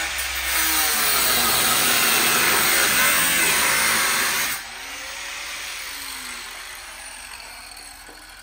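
Corded angle grinder with a cutoff wheel cutting through the metal windshield pillar of a truck cab. About four and a half seconds in, the cutting noise stops suddenly and the grinder runs on more quietly, fading away.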